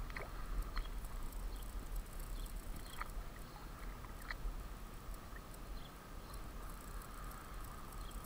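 Faint splashing and lapping of water as a bass is held by hand in the shallows and let go, with a few light clicks.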